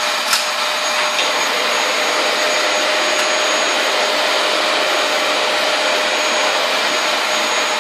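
Dyson canister vacuum cleaner running steadily with a constant whine over its rushing airflow, with a brief knock about a third of a second in.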